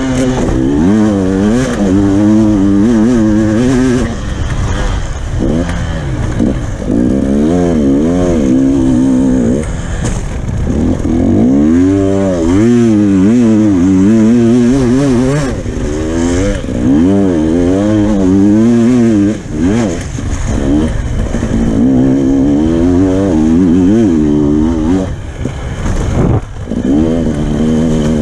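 Motocross dirt bike engine heard from on the bike, revving up and falling off over and over as the rider accelerates, shifts and rolls off through the track's turns.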